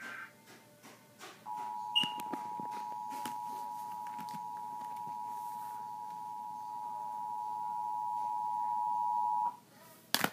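Emergency Alert System attention tone: a steady two-note beep held for about eight seconds, growing a little louder before cutting off abruptly. It signals that a severe thunderstorm warning is about to be read. A sharp click follows just before the end.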